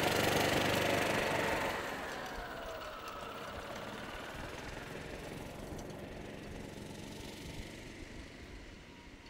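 Golf cart driving away along the cart path, its motor whine sliding down in pitch over the first few seconds and then fading steadily into the distance.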